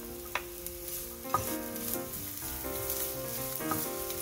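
Diced red onion sizzling steadily in hot olive oil in a nonstick frying pan, stirred with a wooden spatula. Three sharp knocks as the spatula strikes the bowl and pan.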